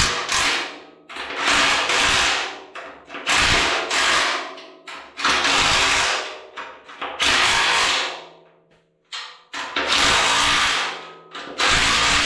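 Cordless drill/driver run in repeated one-second bursts, about every two seconds, spinning a nut down a stud to pull the coilover mount bracket's studs through the truck frame.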